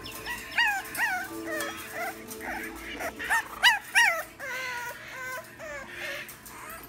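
Bulldog puppies whimpering and yipping: a run of short, high cries that rise and fall in pitch, with the loudest pair a little past the middle.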